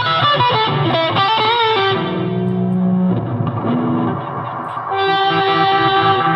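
Electric guitar played through a custom fuzz-and-reverb pedal, sounding distorted. For about the first two seconds the notes waver in pitch, then lower notes are held, and a new sustained chord comes in about five seconds in.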